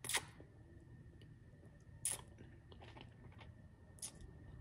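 Close-miked chewing and biting of food: three sharp, crunchy bites about two seconds apart, with soft mouth clicks between them.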